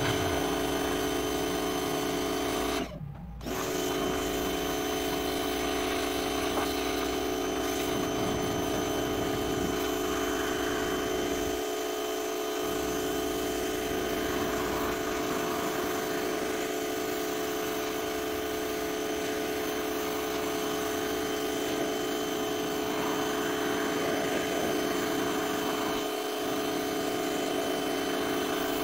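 Pressure washer running steadily while its spray is worked across wooden fence boards, a constant motor-and-pump hum with a hiss of water. It cuts out briefly about three seconds in.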